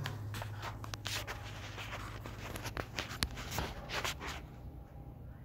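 Footsteps and scuffs of a person walking, with several short sharp taps at irregular intervals, most of them in the second half.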